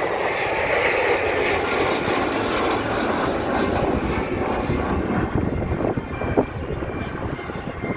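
Fixed-wing airplane flying past: a loud rushing engine drone that swells in the first second, holds, and eases slightly near the end.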